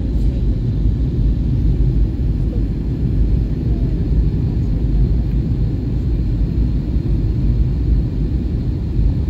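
Steady low rumble of an Airbus A320 airliner's cabin in flight: engine and airflow noise heard from inside the passenger cabin.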